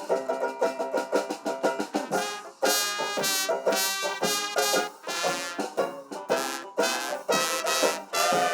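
Instrumental band music with no singing: horn-like notes over a rhythmic percussion beat.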